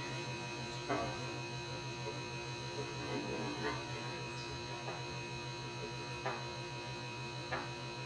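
Refrigerator compressor running with a steady low hum as it pumps air into a plastic water bottle, with a few faint ticks.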